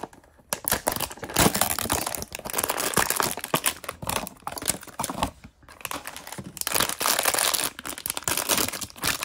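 Crinkly blind-bag toy packaging crinkling and tearing as it is pulled open by hand, in two stretches: one packet for about five seconds, a brief lull, then a second packet.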